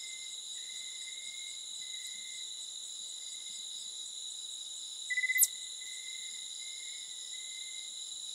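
Night insect chorus: steady high-pitched trilling layered at several pitches. About five seconds in comes a brief, louder high chirp that falls steeply in pitch.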